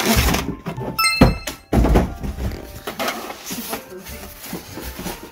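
Styrofoam packing inserts being handled and pulled out of a cardboard box: dull thumps near the start and again just before two seconds in, a brief high ringing squeak about a second in, then quieter rustling of packaging.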